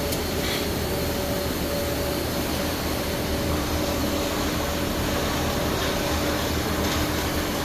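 CNC flat-bar welding machine running: a steady mechanical hum and hiss with a faint whine that breaks on and off, joined by a lower whine about three seconds in.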